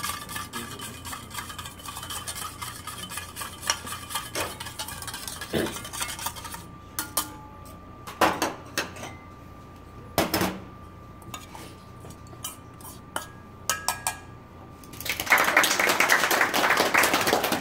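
Wire whisk beating oil and vinegar in a stainless steel bowl: rapid clicking of the wires against the metal, which stops about six seconds in. A few separate clinks of utensils and dishes follow, then a louder rush of noise lasting about two seconds near the end.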